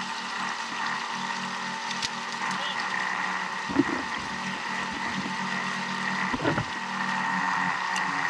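Shallow stream rushing over rocks, a steady hiss, with a couple of short knocks near the middle.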